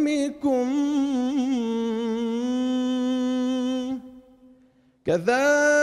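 Solo male voice singing an Islamic devotional nasheed, unaccompanied, in a melismatic style: an ornamented phrase that settles into a long held note, a pause of about a second for breath, then a new long note begins near the end.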